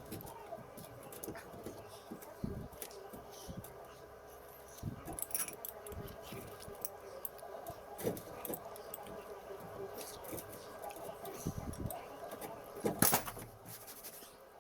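Scattered metallic clinks and knocks of metal parts and tools being handled, the loudest cluster near the end, over a steady hum.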